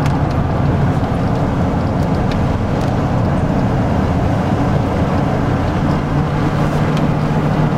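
Engine and tyre noise heard from inside a car's cabin while it drives at steady speed on a paved road: a continuous low hum.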